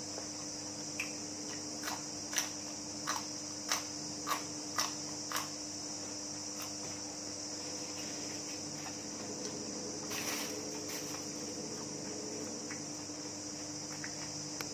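Steady high-pitched chirring of crickets. There is a run of about eight short clicks, roughly two a second, in the first few seconds, and a brief rustle about ten seconds in.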